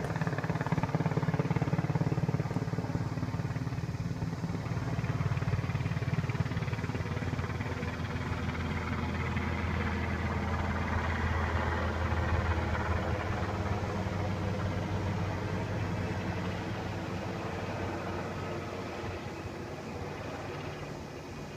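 Helicopter passing low overhead, its rotor beating rapidly with a strong low drone. The sound fades steadily over the last several seconds as it moves away.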